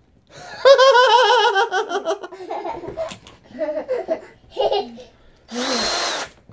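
A high-pitched, wavering laugh for a couple of seconds, trailing off into softer chuckles. Near the end a cordless drill whirs for under a second, spinning a pencil in a sharpener held in its chuck.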